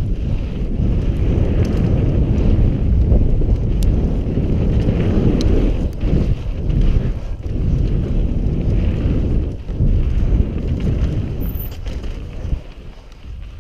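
Wind buffeting an action camera's microphone on a mountain bike descending a loose dirt trail at speed, mixed with the rumble and rattle of the tyres and bike over the ground. The noise eases off near the end.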